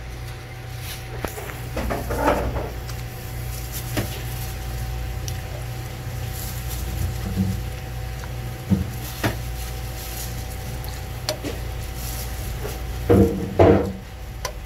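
Scattered knocks and clatter of things being handled, the loudest two close together near the end, over a steady low hum.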